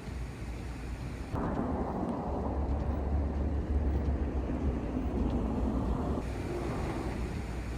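Outdoor street ambience: a steady low rumble without speech that changes abruptly twice, about a second and a half in and again near six seconds, as the footage cuts.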